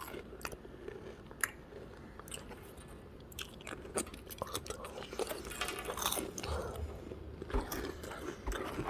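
Someone chewing a mouthful of Goldfish crackers, with irregular crunching close to the microphone.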